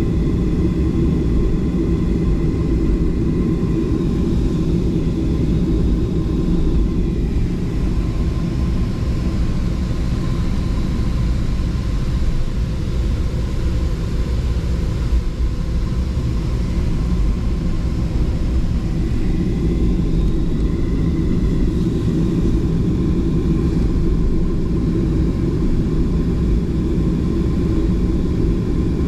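Cabin noise of a Southwest Boeing 737 airliner: the jet engines and airflow make a steady low rumble with a faint steady whine above it.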